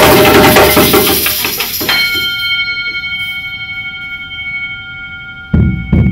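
A group of djembes and other drums playing together, breaking off in the first couple of seconds. About two seconds in, a struck metal bell rings a single note that slowly fades. The drums crash back in together about five and a half seconds in.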